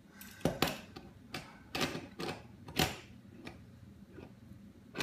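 Small toy cars knocking and clacking against a tabletop as a toddler handles them: about eight or nine sharp, irregular knocks.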